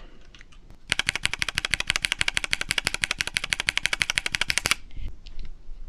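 MK Purple Slush linear switches with a 50-gram spring, in a keyboard, pressed rapidly: a fast, even run of key clacks, about ten a second, starting about a second in and stopping about a second before the end.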